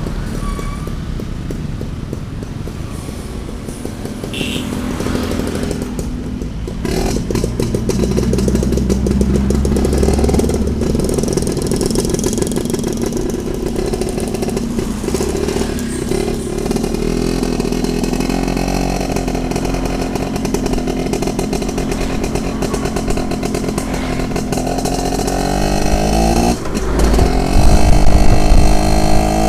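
Yamaha Alfa two-stroke motorcycle engine running under way. Its note climbs steadily in pitch from about eighteen seconds in as it accelerates, and it is loudest near the end.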